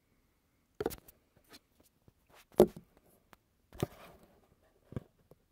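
A few short knocks and clunks as a phone is handled and propped up on a wooden porch rail, with small clicks between them; the loudest knock comes about two and a half seconds in.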